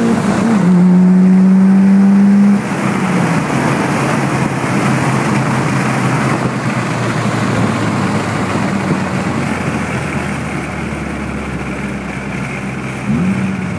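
Vehicle engine held at high revs during a drag run, with a brief dip about half a second in. About two and a half seconds in it drops back to a quieter running sound with road and wind noise. The revs rise briefly again near the end.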